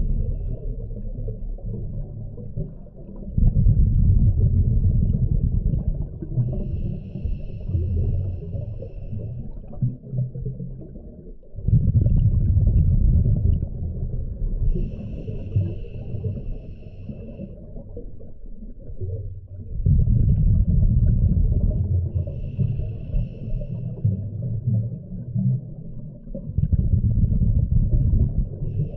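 Scuba diver breathing through a regulator underwater, in a regular cycle about every eight seconds. A short, high hissing inhale is followed by a loud burst of exhaled bubbles rumbling for a few seconds, with four exhalations and three inhales.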